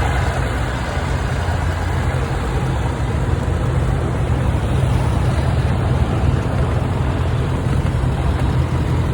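Vintage machinery engines running steadily, low-pitched with a noisy haze above and no sharp changes.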